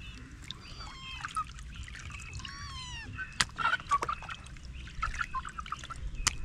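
Birds chirping and calling, many short pitched calls overlapping, with a couple of sharp knocks, one about three seconds in and one near the end.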